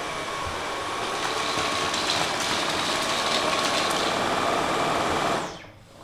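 Dyson V11 cordless stick vacuum with its soft roller cleaner head running on a hardwood floor on its medium power setting: a steady rush of motor and airflow with a faint high whine, fading out about five and a half seconds in.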